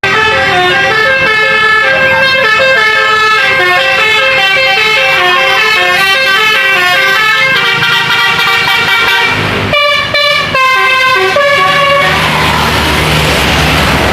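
Telolet multi-tone air horn on a tour bus playing a quick melody of changing notes, briefly pausing about ten seconds in. Near the end the horn stops and the bus's engine and tyres rush past.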